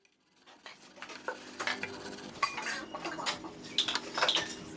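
Hand wire brush scrubbing rust off a corroded steel bolt and frame in irregular scratching strokes, starting a moment in and growing louder. Near the end come a few sharper metal clinks, fitting a socket wrench being set onto the bolt.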